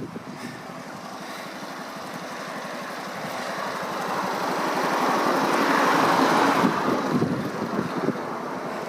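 The freshly restored 1969 Honda Monkey's small single-cylinder engine running. It grows steadily louder to a peak about six seconds in, then falls away again.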